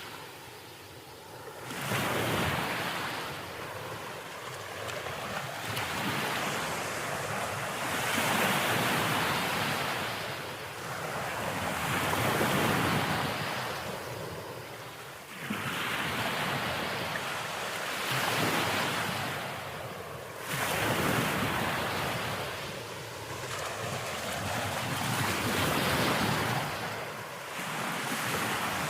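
Ocean waves breaking on a beach, the surf swelling and washing back every few seconds, with some wind noise.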